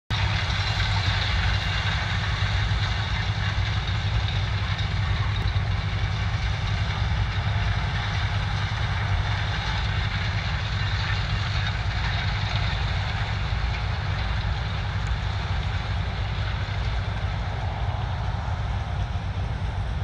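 Claas Lexion 770 combine harvester cutting maize: a steady drone of engine and threshing machinery, even in level throughout.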